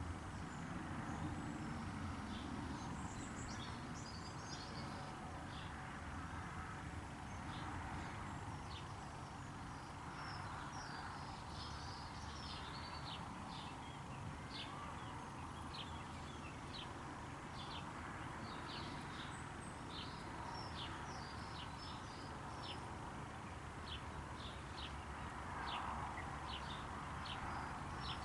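Small birds calling in many short, high chirps, scattered irregularly, over a steady background hiss and low rumble.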